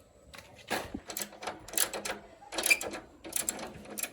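Metal tools and parts clinking and rattling by hand: an irregular run of sharp clicks and short scrapes.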